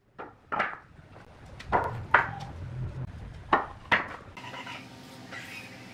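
Wooden boards set down and knocked against each other on a concrete floor: six sharp knocks in three pairs, each pair about half a second apart. After about four seconds a faint steady chirring is left in the background.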